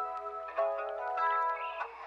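Calm background music led by plucked string notes that ring on, with a change of chord about half a second in and again near the end.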